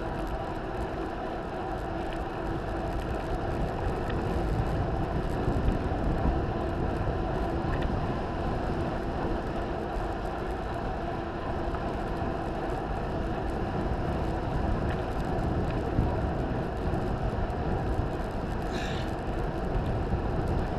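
Steady wind noise on the microphone and tyre roar from a mountain bike descending a paved road at speed. There is a brief high wavering chirp near the end.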